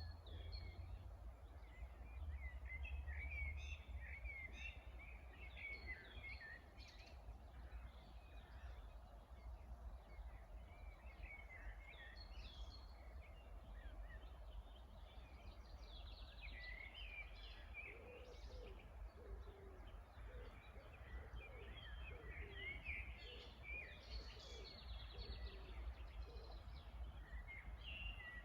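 Several wild birds singing together, overlapping chirps and trills, faint, with some lower-pitched calls joining in the second half over a steady low rumble.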